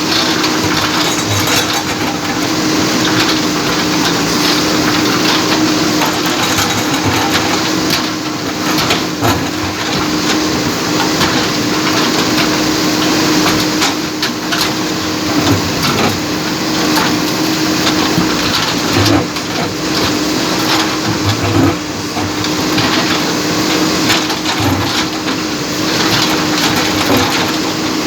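JCB backhoe loader's diesel engine running steadily under load while its bucket breaks up an old bridge, with continuous irregular crunching, cracking and knocking of the breaking structure.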